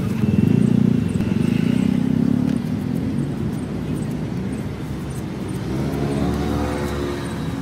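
Street traffic: motor vehicle engines running close by, loudest in the first couple of seconds. Near the end an engine passes, its pitch rising and then falling.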